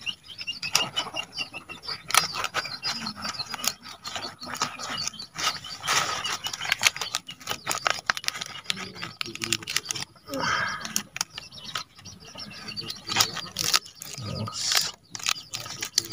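Fresh turmeric leaves crackling and rustling as they are folded by hand into a tight parcel and bound with thin wire: many short, irregular crinkles and clicks.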